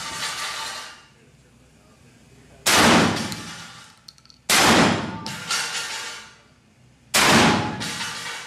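Three shotgun shots, about two seconds apart, each with a long echoing tail in an indoor range. Fainter sharp cracks follow the later shots.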